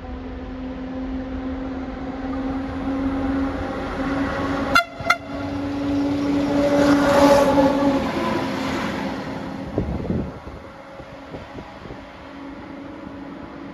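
A train moving through a station: a steady pitched hum, with its running noise swelling to a peak about seven seconds in and dying away around ten seconds. Two short sharp sounds come close together about five seconds in.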